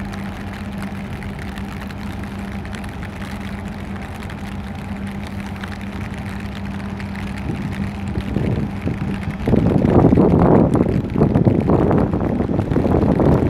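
Steady low hum of a marine engine. From about two-thirds of the way in, gusty wind rumbles on the microphone and drowns out the hum.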